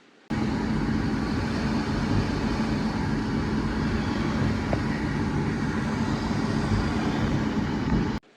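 Machine tool running: a steady, loud machining noise with a low, even hum. It starts suddenly and cuts off abruptly near the end.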